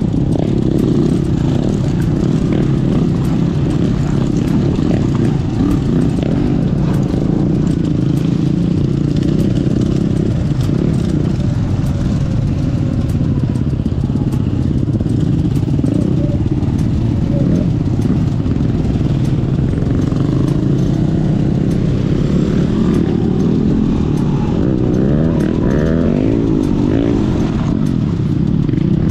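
Dirt bike engine running steadily at trail speed on the rider's own bike, its pitch wavering with throttle changes, most clearly near the end, with the bike clattering over a bumpy dirt track.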